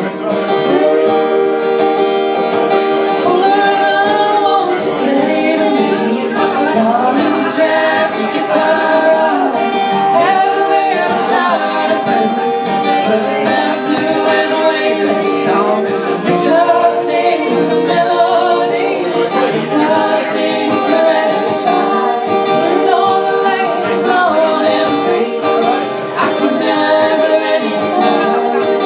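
Band music: a voice singing over guitar accompaniment.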